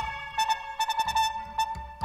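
Studio recording of a large jazz ensemble of winds, brass, bass and percussion: a high pitched note sounded again and again in short attacks, over a low bass underneath.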